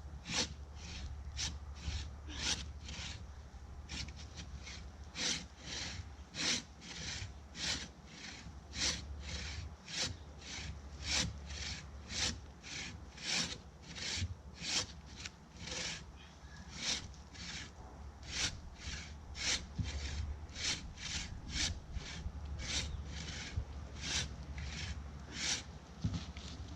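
Hand bow saw cutting through a tree trunk in a steady back-and-forth rhythm, about two rasping strokes a second, every other stroke louder.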